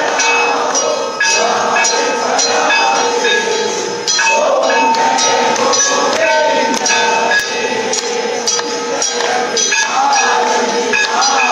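Temple bells ringing with metal clanging in rapid, uneven strikes during an aarti, the lamp-waving worship, with voices chanting over them.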